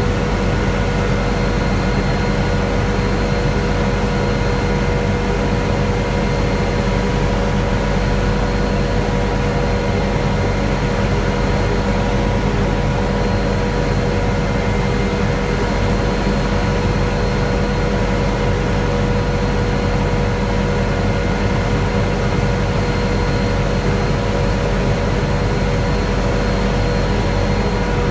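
Helicopter in steady cruise, heard from inside the cabin: a loud, unchanging drone from the engine and rotors, with several steady whining tones over it.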